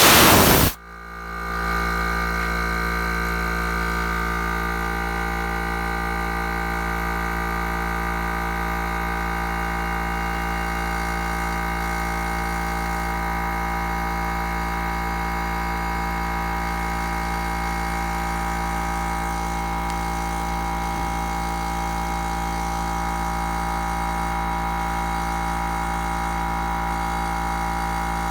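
PUMA SR-045 machine starting with a loud burst, then its motor running at an even, steady speed with a constant hum.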